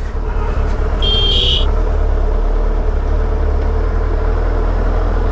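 Suzuki Hayabusa's inline-four engine running steadily under the rider, a constant low drone. A brief high-pitched tone sounds about a second in.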